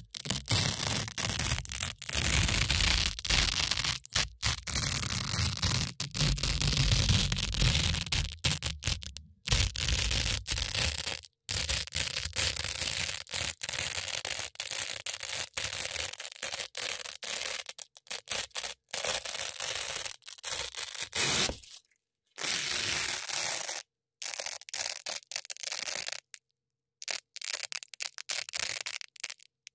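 Velcro hook-and-loop strips crunching and ripping close to the microphone in rapid scratchy strokes. For about the first ten seconds the sound is dense with a heavy low rumble. After that it breaks into shorter strokes with brief silent gaps between them.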